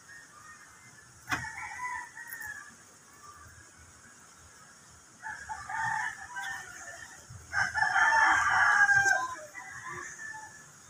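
Rooster crowing three times, the longest and loudest crow near the end.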